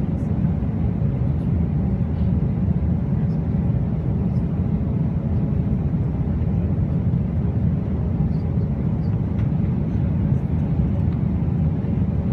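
Jet airliner's passenger cabin noise: a steady, low rumble of engines and rushing air that does not change.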